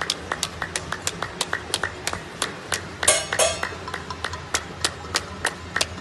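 Hands clapping in a quick, steady rhythm, about five claps a second, with a few louder, ringing strikes about three seconds in.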